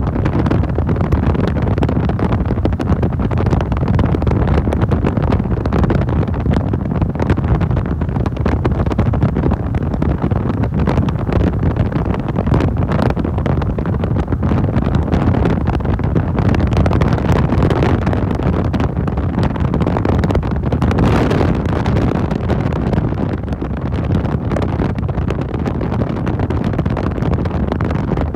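Motorcycle riding at speed: a steady rush of wind buffeting the microphone over the engine and road noise.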